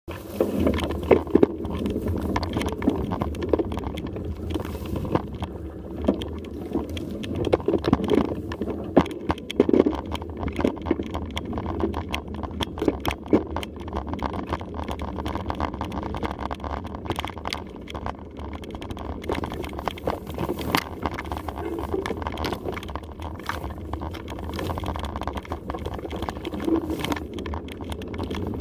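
Mountain bike ridden along a dirt single track: a steady rumble of tyres on the trail with frequent sharp rattles and knocks from the bike over bumps.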